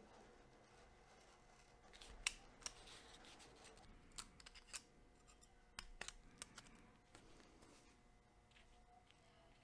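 Utility knife blade cutting and picking out the window openings of a paper template on a cutting mat: faint, scattered scratches and small clicks, the sharpest a couple of seconds in.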